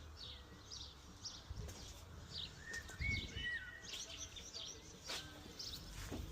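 Small birds chirping faintly, a short high call repeated about every half second, with a few lower whistled notes about three seconds in. A few light clicks or knocks come through as well.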